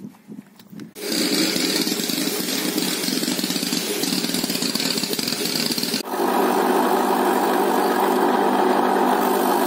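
Compressed air hissing from an air-hose nozzle blown over a part. About six seconds in it cuts off sharply to a bench grinder running with a steady hum.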